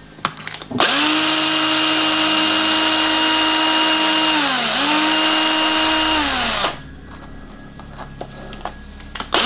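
Electric screwdriver running steadily for about six seconds as it backs out a screw from an RC crawler's rear axle housing. Its whine dips once in pitch midway and sags again just before it stops. A few small clicks of handling follow, and it starts up again at the very end.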